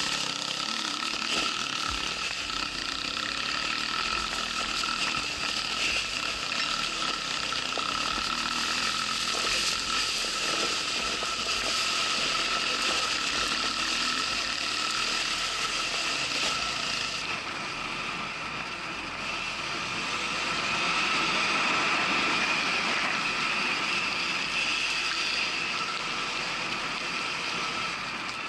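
Electric enduro motorcycle being ridden: the steady whine of its electric motor and drivetrain, with a rattling of chain and gears, over the noise of the ride. The tone shifts a little about two-thirds of the way through.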